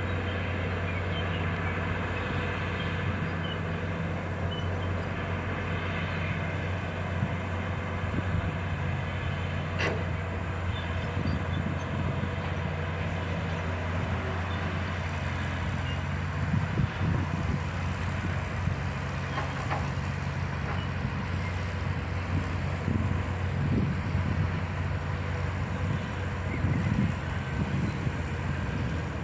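Bulldozer's diesel engine running steadily under load, with irregular metallic clanking joining in over the second half.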